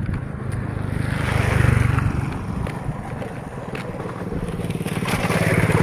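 Small motorbike engine running, its sound swelling twice, about a second and a half in and again near the end.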